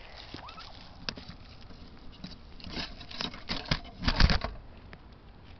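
Crackling and rustling of steps through dry leaves and grass. About four seconds in comes a louder scuffle of rustles and thumps as a hen turkey is grabbed and picked up, with its body brushing against the microphone.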